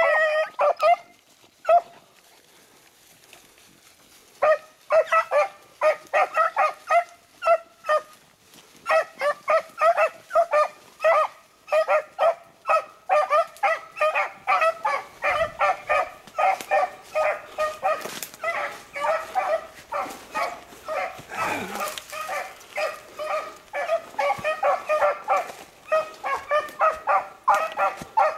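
Beagles baying in short, rapid, repeated barks, the sound of hounds giving voice while running a rabbit's scent trail. The barking pauses briefly about two seconds in, then picks up again and carries on steadily and densely.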